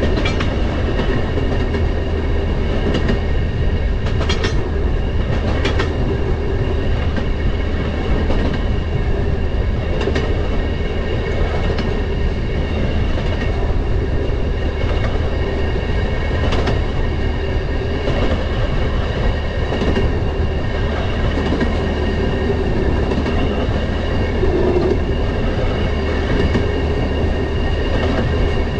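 Railroad motorcar (track speeder) running along the rails with a loud, steady rumble and hum. Now and then a sharp click comes as the wheels cross rail joints.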